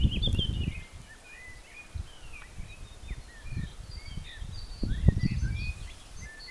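Several birds singing in short chirps and trills. Low gusts of wind buffet the microphone in the first second and again about five seconds in.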